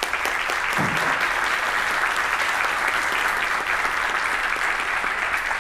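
Audience applauding: dense, steady clapping from a seated crowd in a hall, starting suddenly as the winner is named.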